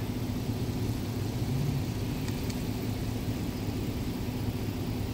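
Steady low rumble of road traffic, with the constant hum of running car engines. Two faint ticks a little over two seconds in.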